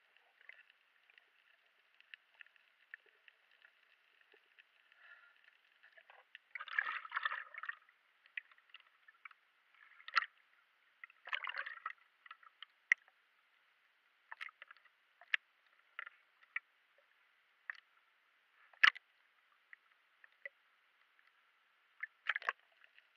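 Muffled water sloshing and splashing heard through an underwater camera's housing as it moves between below and at the sea surface, with scattered sharp clicks and a few short bursts of splashing, the clearest about seven and eleven seconds in and near the end.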